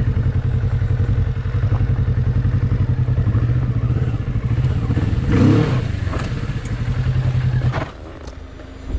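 Motorcycle engine running at low speed, a steady low throb, which drops away shortly before the end. A brief louder sound comes about halfway through.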